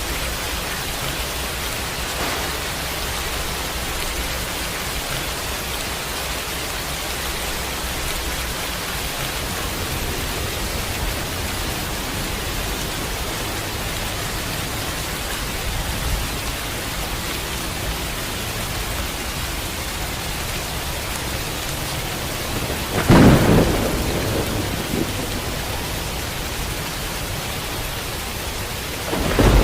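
Steady rain falling, with a sudden thunderclap about three-quarters of the way through that rumbles away over a couple of seconds, and another peal of thunder breaking right at the end.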